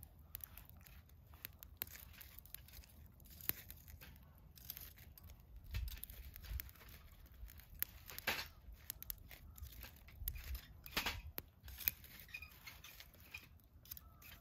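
Wood campfire crackling and snapping: faint, irregular pops and clicks, a few sharper snaps among them.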